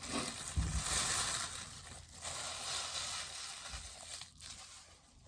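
Packaging crinkling and rustling as it is handled and pulled away, with a couple of soft knocks, during the unboxing of a bobblehead base.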